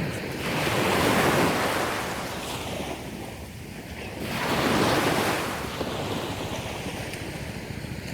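Sea waves washing onto a shore, swelling twice, about a second in and again about five seconds in, with wind rumbling on the microphone.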